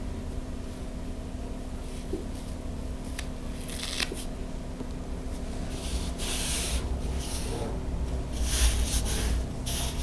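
Fabric appliqué pieces backed with fusible web and their paper backing being handled and pressed down by hand: a few short rustling, rubbing swishes over a faint steady hum.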